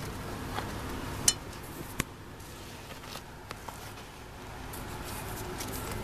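Corgi-Sheltie puppies eating from a food dish: scattered small clicks of food against the dish, with two sharper clinks about one and two seconds in.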